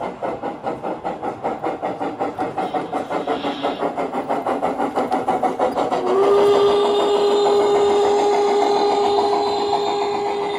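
Large-scale model steam locomotive's sound unit chuffing in a quick, even rhythm of about five beats a second, picking up slightly. About six seconds in, a long, steady steam whistle blast starts.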